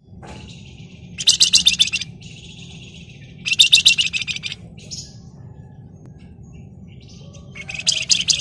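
Flamboyan (wergan Jawa) songbird singing three short, dense, rapid scratchy trills a few seconds apart, over a faint steady low hum.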